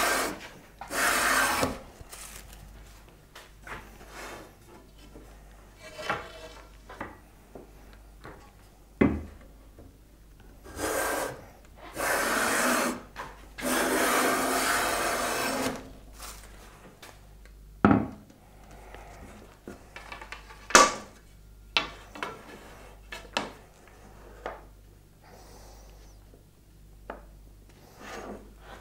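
Long hand plane taking strokes along a thin ramin strip, each stroke a rasping hiss of the shaving coming off; the slightly interlocked grain doesn't always sound the greatest under the plane. Two strokes at the start, a pause with small knocks, then three more strokes in the middle, the last about two seconds long, followed by a few sharp knocks of wood and tools being handled.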